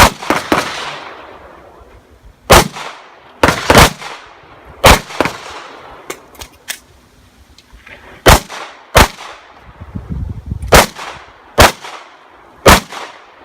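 Glock 19 9mm pistol fired about ten times, in quick pairs and single shots separated by pauses of one to three seconds, each report sharp with a short echo.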